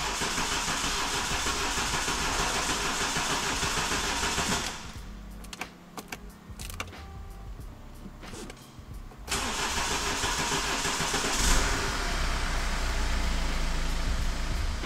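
BMW X1 diesel engine cranked by its starter for about five seconds without firing. A second crank follows after a pause, and about two seconds into it the engine catches with a low rumble and keeps running. This is the first start after a timing-chain replacement and intake-manifold refit.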